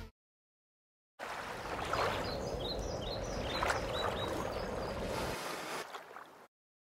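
Water splashing and gurgling against a boat's hull, starting about a second in and cutting off suddenly near the end. A few short high chirps sound over it.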